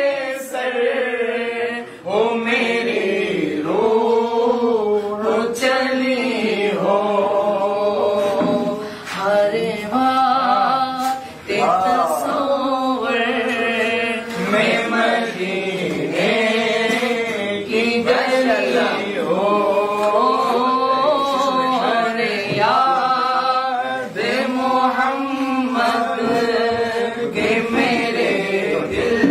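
A man singing an Urdu naat unaccompanied, in long held notes that bend and waver up and down, phrase after phrase.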